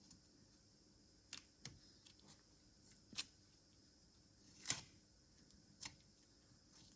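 Faint, sharp little snaps and clicks of masking tape being peeled off freshly painted brake caliper threads, about six in all, the loudest a little under five seconds in.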